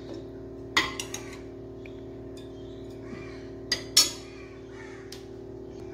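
Steel ladle clinking against a stainless-steel pressure cooker and a ceramic plate while porridge is served: a few sharp clinks, a pair about a second in and a louder pair near four seconds, the last the loudest, over a steady low hum.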